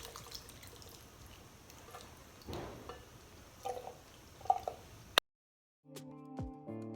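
Faint wet squelching and dripping of food being handled in a cooking pot, with a few light knocks. About five seconds in it cuts off, and background music starts.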